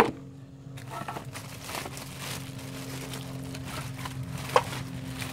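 Plastic bag crinkling and rustling as the wrapped circular saw is handled and unpacked, with one sharp tick near the end, over a steady low hum.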